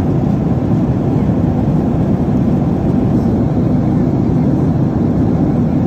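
Airliner passenger cabin noise at cruise: a steady, low hum of engines and rushing airflow heard from inside the cabin.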